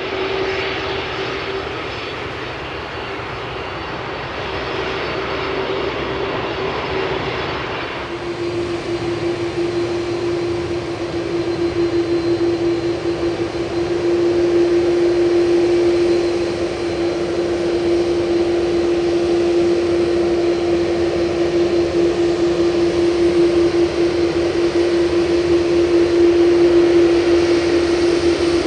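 Airbus A330-300's twin General Electric CF6-80E1 turbofans running at low power as the airliner taxis after landing. A steady jet drone with a strong whine that grows louder as the aircraft draws near; the whine drops slightly in pitch about eight seconds in.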